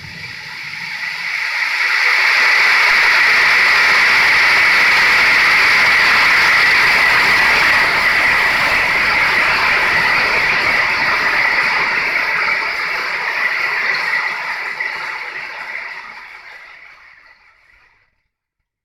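Heavy thunderstorm rain, a steady hiss of downpour that swells in over the first two seconds and fades away to silence near the end. A low thunder rumble dies away just at the start.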